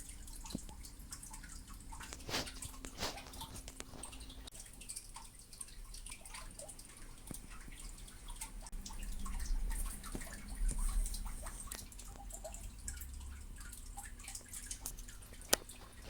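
Kensington SlimBlade trackball buttons being pressed: irregular small, sharp clicks, a few of them louder, over a faint low rumble of handling.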